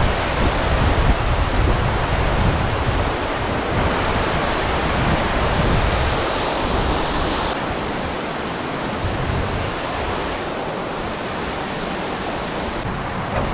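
Steady rushing outdoor noise, with a low, gusting rumble of wind on the microphone through the first half that drops away after about seven seconds. The sound changes abruptly a few times.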